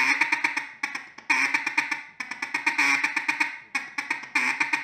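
Mallard duck call blown in a feed chuckle: phrases of rapid ticking notes, each about a second long with short breaks between. A short quack is mixed into each phrase, imitating a mallard hen chattering to the ducks around her as she feeds.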